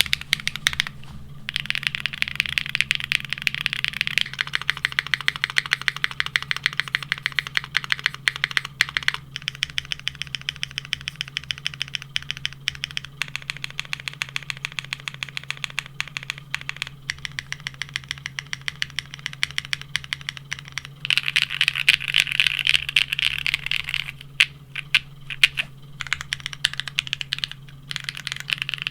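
Typing on a Neo65 plateless, foamless mechanical keyboard fitted with KKB ABS keycaps, after JTK ABS keycaps in the first few seconds. A long run of evenly paced keystrokes gives way to a burst of fast typing and then a few separate presses near the end, over a steady low hum.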